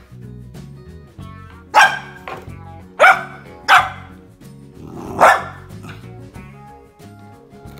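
Golden retriever puppy barking about four times in short, high yaps, spread over a few seconds.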